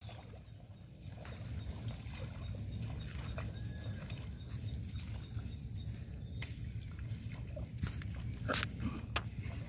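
Insects trilling steadily in a high continuous band, with a soft chirp repeating about three times a second, over a steady low rumble. A few sharp clicks stand out, the loudest near the end.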